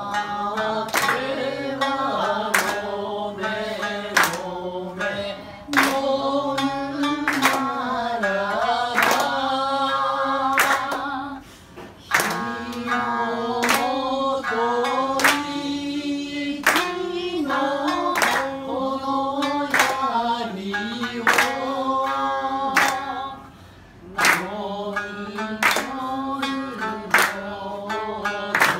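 A geisha singing solo while accompanying herself on the shamisen, the plucked strings making sharp, regular strikes that keep time under the voice. The song comes in long phrases with two short breaks, one near the middle and one near the end.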